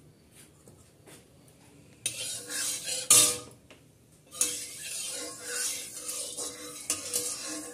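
Metal spatula clanking against and scraping around the inside of a metal kadai, spreading a little oil over the pan. A sharp clank comes about three seconds in, then steady scraping from about four and a half seconds on, with the pan ringing faintly underneath.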